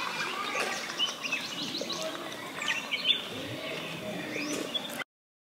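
Birds chirping in scattered short calls over an outdoor background. It cuts off suddenly near the end.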